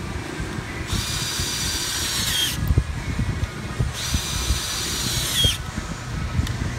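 Cordless drill/driver whining in two runs of about a second and a half each, driving threadlocked bolts into a brake rotor. The pitch drops as each run ends.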